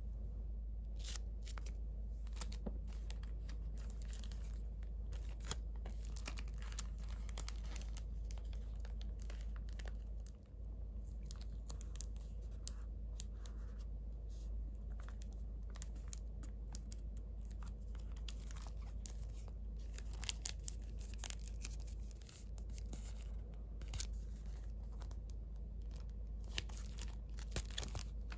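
Hands handling and leafing through the papers and cards of a handmade junk-journal file, giving light rustling, crinkling and small crisp taps of paper. A steady low hum runs underneath.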